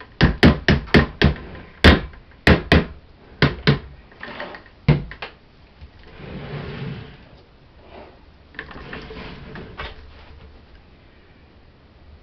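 Stick blender knocked about a dozen times against the rim of a plastic bucket of soap batter, sharp irregular taps over the first five seconds. Then softer scraping and shuffling as the bucket is handled on the table.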